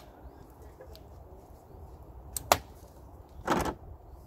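Metal clicks and a clank from a boat trailer's hitch coupler being worked by hand: a sharp click, the loudest sound, about two and a half seconds in, then a brief, heavier clank about a second later.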